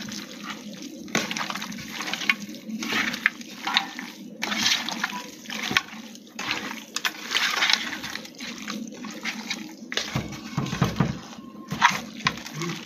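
Hands kneading and squeezing raw duck pieces in a metal bowl to rub in a spice marinade, making irregular wet mixing sounds in uneven surges.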